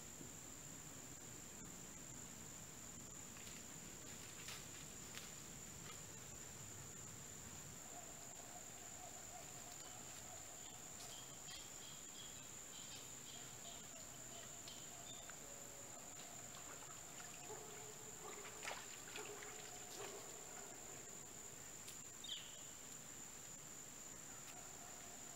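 Crickets trilling steadily in one high, even tone, with a few faint crackles and snaps of dry leaves scattered through it, footsteps of a deer approaching through the leaf litter.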